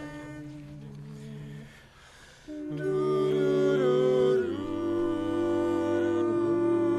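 Barbershop quartet of four men singing a cappella in close four-part harmony, without words. Soft held notes come first; about two and a half seconds in the full chord comes in loudly and shifts to a new chord a couple of seconds later.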